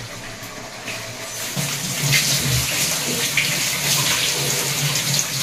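Kitchen tap running into a steel sink while a bunch of fresh coriander leaves is rinsed under the stream. The water noise builds up about a second in, then runs steadily.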